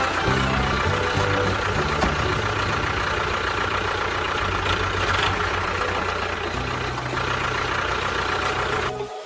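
Engine idling steadily with a low rumble, cutting off suddenly near the end.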